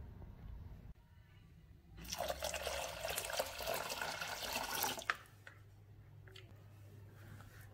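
Water poured from a measuring jug into a stainless steel saucepan of brine spices: a steady splashing pour of about three seconds that stops abruptly about five seconds in.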